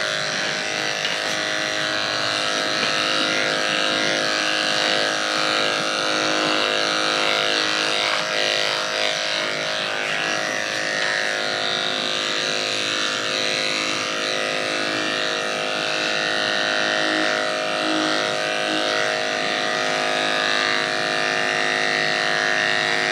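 Corded electric dog-grooming clippers running with a steady hum as they shave a dog's coat down close to the skin.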